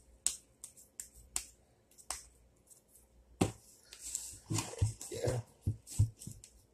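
Raw ground beef being patted into a hamburger patty between the palms: a run of quick, sharp slaps that pauses briefly in the middle and then picks up again.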